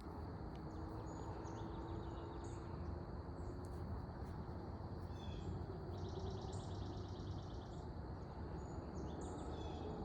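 Several birds chirping and calling in woodland over a steady low ambient rumble, with a rapid trill of quickly repeated high notes lasting about a second and a half, about six seconds in.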